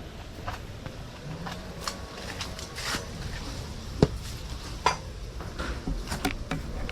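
Scattered light clicks, clinks and knocks of gear being handled while walking, over a low rumble, with the sharpest click about four seconds in.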